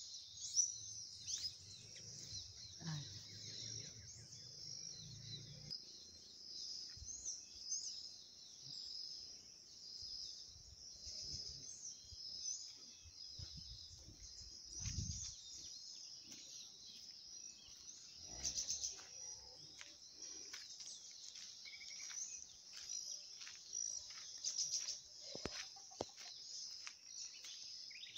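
Steady high chorus of insects with birds chirping and calling over it, and scattered scuffs and knocks.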